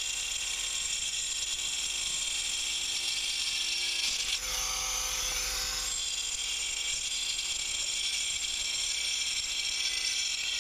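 Bosch GWX 18V-15 SC cordless angle grinder cutting through a klinker brick with a multimaterial cutting disc: a steady whine under gritty cutting noise, which turns coarser for a couple of seconds around the middle.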